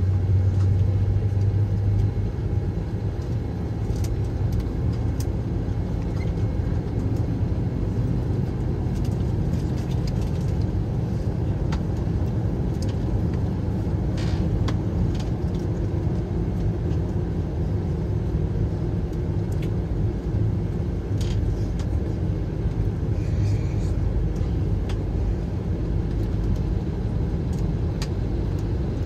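Steady low rumble inside the cabin of an Airbus A321 on the ground, with a hum that is strongest in the first couple of seconds and a few faint clicks.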